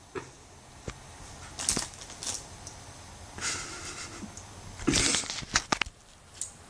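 Handling noise from a camera being moved about: scattered clicks and knocks with short rustling bursts, the loudest cluster about five seconds in.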